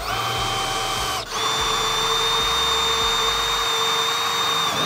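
Milwaukee cordless drill boring a hole through an aluminum plate: a steady motor whine that starts slow, dips briefly about a second in, then runs on at a higher pitch.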